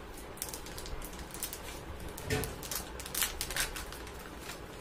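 Clear plastic zip pouch crinkling and crackling as it is handled and pulled open, in a run of quick, irregular crackles that are loudest past the middle.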